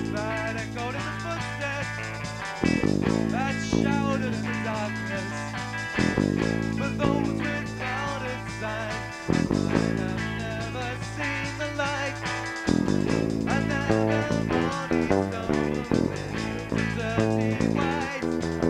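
A small rock band playing live: guitar and bass hold chords that change about every three seconds, under a wavering lead line. It is an amateur rehearsal recording with poor sound.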